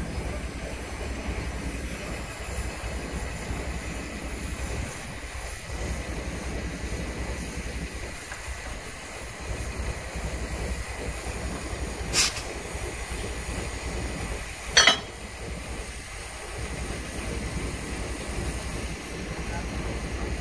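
Engine of a small yellow rail maintenance vehicle running with a steady low rumble as it slowly moves a coupled wooden passenger carriage along the track. Two short, sharp sounds come about twelve and fifteen seconds in, the second the loudest.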